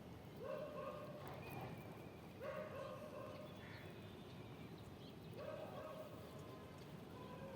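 Sheep bleating: three steady-pitched calls of about a second each, spaced a couple of seconds apart.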